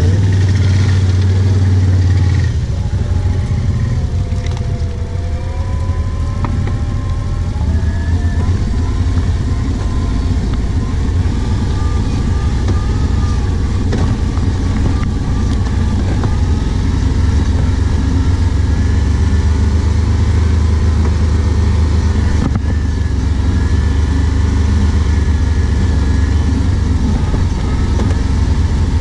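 Can-Am Outlander 570 ATV's V-twin engine running as the quad rides along a forest trail, a steady low rumble with a thin whine that rises and falls in pitch as the speed changes. The low note shifts a couple of seconds in.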